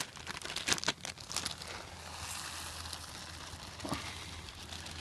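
Clear plastic bag of rice rustling as it is handled and tipped into a canteen cup of boiling water, with a run of sharp crackles in the first second or so.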